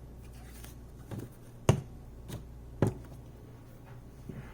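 Four sharp knocks and clicks of kitchen items being handled on a counter, the loudest about halfway through and again a second later.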